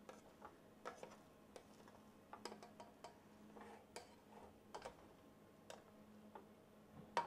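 A rice spoon stirring cooked basmati rice in a pot: faint, scattered light clicks and taps of the spoon against the pot, irregular, over a faint steady hum.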